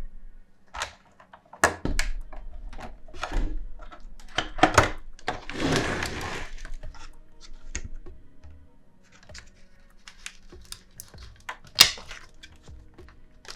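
Handling noise: a string of sharp clicks and knocks, with a longer rustling scrape about six seconds in, as a boxed glass pepper and salt grinder is handled and unpacked.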